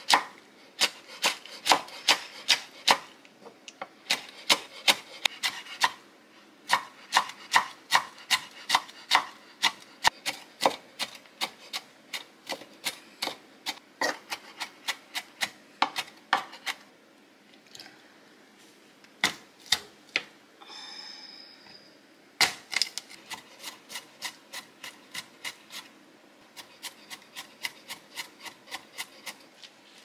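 Chef's knife chopping and mincing fresh green chili peppers on a wooden cutting board: quick, even strikes of the blade on the board, about three a second, with a short pause around the middle before the chopping picks up again.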